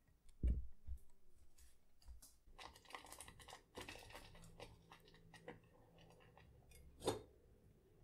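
Red silicone spatula stirring and scraping thick mashed pumpkin cream in a pan: soft, wet squelching with many small clicks. There is a low thump about half a second in and a sharper knock about seven seconds in.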